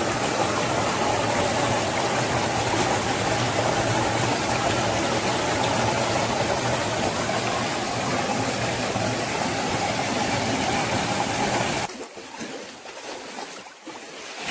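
Stream water rushing and splashing between boulders close to the microphone, a loud steady rush. It cuts off about twelve seconds in, leaving fainter, uneven water sounds.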